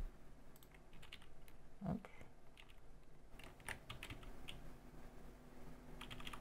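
Computer keyboard keys pressed in short runs of clicks, as modifier and arrow-key shortcuts are tapped repeatedly. A soft low thump comes about two seconds in.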